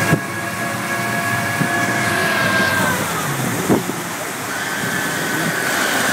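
Twin Mercury Verado 350 supercharged six-cylinder outboards running at speed, with a steady whine over the rush of wind and wake water. The whine fades about three seconds in and comes back a second and a half later.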